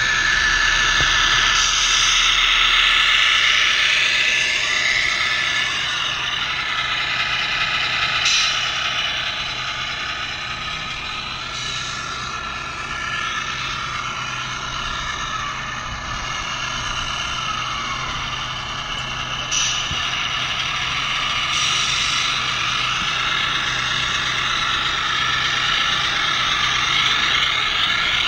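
Scale RC semi trucks running, their electric motors and gearboxes giving a whine that rises and falls with speed, with a few short hissing bursts.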